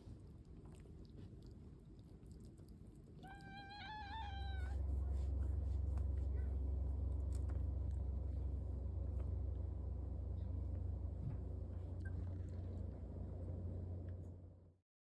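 A kitten meows once, a high wavering call about three seconds in. It is followed by a steady low rumble that lasts until the sound cuts off just before the end.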